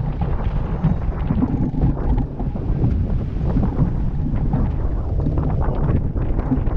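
Wind buffeting the microphone over the rush of water along the hull and wake of a racing sailboat under way, a steady low noise throughout.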